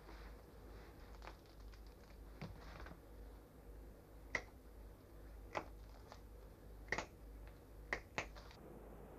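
Shears snipping through the toe joints of a red fox's front paw as the toes are clipped off: a series of short, sharp snips, faint at first, then about five louder ones in the second half.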